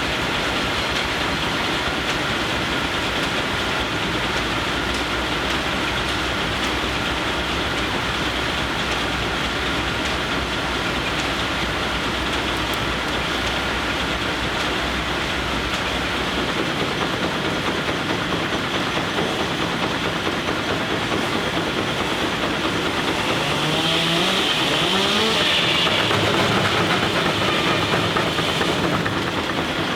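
Steam-powered sawmill running: steam engines driving the mill through line shafts and belts, making a steady mechanical clatter and hiss. About three quarters of the way through it gets louder, with a tone that slides in pitch.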